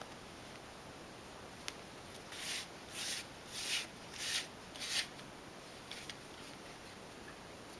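Hard-bristled brush stroking through a cat's fur: five quick scratchy strokes in a steady rhythm, a little under two a second, starting about two seconds in, after a single faint click.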